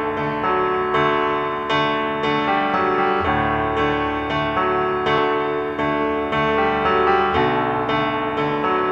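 Background piano music, a steady run of notes struck and fading.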